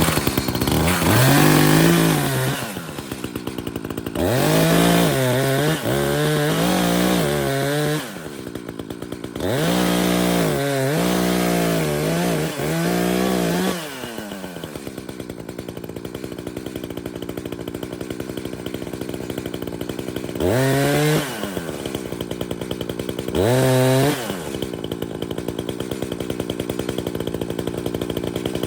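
Two-stroke chainsaw run at full throttle in several long bursts, its pitch sagging and wavering as it cuts into a dead tree's trunk, then dropping back to a steady idle. A long idle stretch follows, with two short revs near the end.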